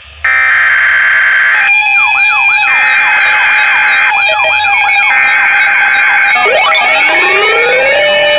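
Loud electronic emergency alert tones: a steady alarm tone, joined after a couple of seconds by warbling siren sweeps, then a pile-up of overlapping rising siren glides near the end.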